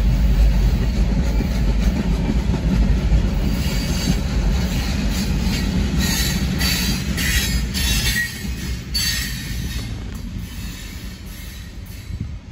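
Freight train cars rolling past a grade crossing with a heavy low rumble. From about four to nine seconds in, the wheels give a run of sharp, high-pitched squeals and screeches. The rumble then fades as the end of the train goes by.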